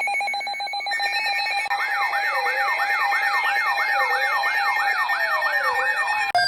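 Electronic alert tones layered together: a rapidly pulsing steady tone, joined about two seconds in by a siren-like yelp sweeping up and down about three times a second. Near the end it cuts suddenly to a different pulsing tone.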